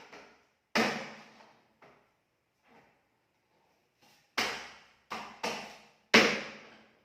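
A knife chopping through chicken carcasses: single hard chops at an irregular pace, one about a second in, a couple of light ones, then four heavy chops in quick succession near the end.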